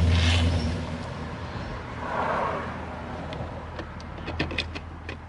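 Torx screwdriver driving a door-panel screw in, heard as a quick run of sharp clicks about three seconds in, over a steady low hum.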